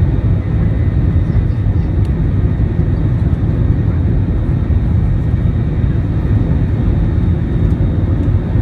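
Airbus A321 jet engines and airflow heard from inside the passenger cabin during takeoff: a loud, steady, deep rumble with a faint thin whine above it.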